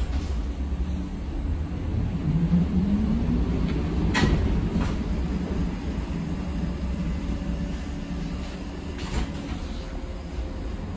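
ZiU-682G-016.02 trolleybus running: a steady low rumble, with the traction motor's hum rising in pitch about two seconds in as it pulls away or speeds up. Two short clicks, one near the middle and one later on.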